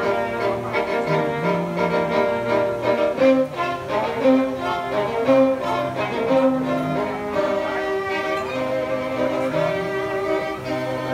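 A string quartet playing: violins carry the melody over held cello notes that change every second or so.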